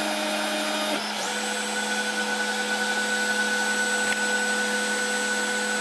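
Snapmaker 2.0 3D printer's stepper motors whining steadily as the axes travel home at the end of a print, over a constant hum; the whine shifts to a new pitch about a second in.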